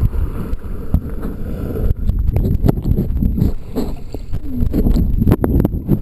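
Muffled underwater sound from a submerged waterproof camera in lake water: a dense low rumble of moving water against the housing, with irregular clicks and knocks from the camera being moved about.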